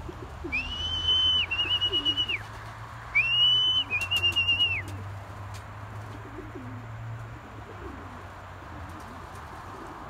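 A high, steady whistle sounded twice, each about two seconds long and warbling toward its end, calling circling racing pigeons down to the loft. Faint pigeon cooing runs underneath.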